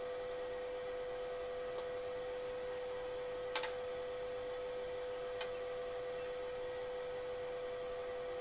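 A steady high-pitched electrical whine with a few light clicks as a hot-stapler plastic welder and its staples are handled on an acrylic sheet. The loudest click comes about three and a half seconds in.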